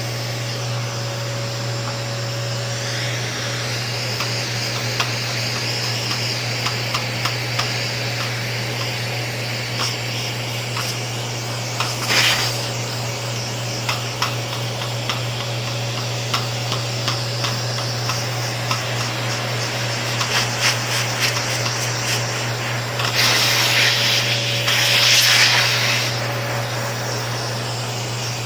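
Vacuum cleaner running steadily as its nozzle is worked over an electric fan, with scattered light clicks and taps of the nozzle against the fan. The suction hiss swells briefly about twelve seconds in and again for a few seconds near the end.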